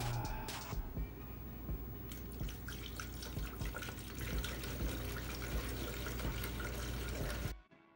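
Water-based coolant pouring from a plastic jug into a funnel: a steady splashing trickle that cuts off suddenly near the end.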